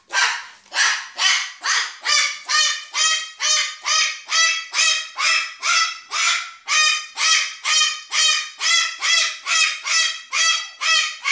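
A pet screaming over and over, a rapid series of about two dozen high calls at roughly two a second.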